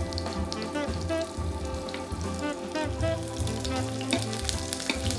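Peeled turnips sizzling in hot fat in a frying pan, with a spoon basting them near the end. Soft background music runs underneath.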